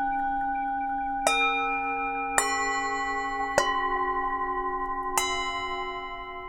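Tibetan singing bowls struck four times at different pitches, each strike leaving a long, overlapping ring with a slow wavering pulse. The ringing fades near the end.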